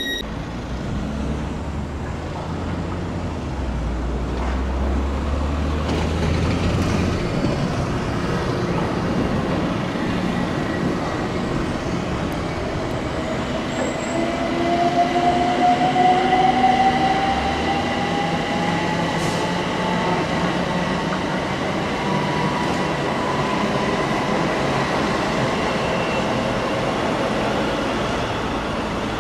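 Electric multiple-unit trains running. Midway a Class 360 Desiro passes, its traction motors giving a whine that rises in pitch for several seconds as it picks up speed. Steady rail rumble runs under it.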